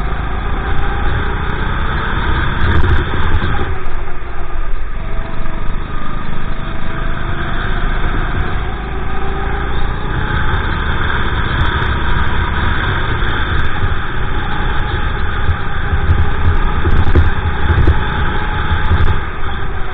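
Honda GX390 single-cylinder four-stroke engine of a Sodi RT8 kart running under load at racing speed, its pitch falling and rising as the kart slows for corners and accelerates again.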